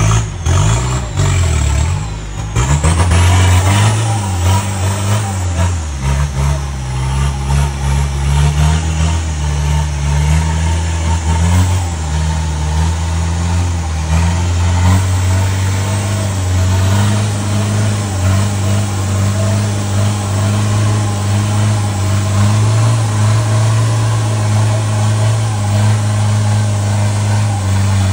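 Off-road Toyota Hilux's engine running under load, revving up and down during the first few seconds, then holding a steadier drone.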